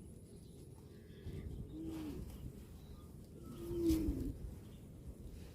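A dove cooing twice, short low arched coos about two and four seconds in, with a sharp click or knock alongside the second coo.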